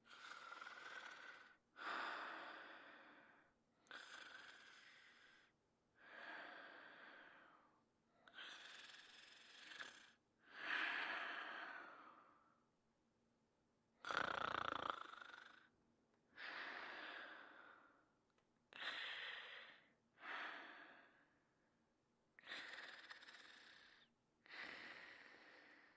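A sleeping person snoring lightly: a dozen or so breathy, wheezy breaths in and out, each lasting a second or two, with short pauses between. The breath about halfway through is the loudest and has a low rattle.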